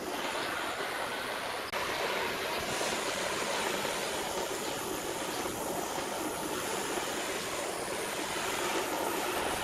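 Handheld butane torch on a gas canister hissing steadily as its flame scorches the wooden bench slats, with a brief drop in level just under two seconds in.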